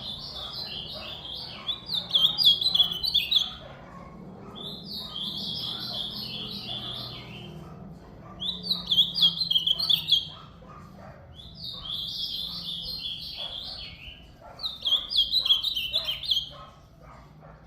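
Ultramarine grosbeak (azulão) singing: repeated short warbled song phrases, each lasting a second or two, with pauses of a second or two between them.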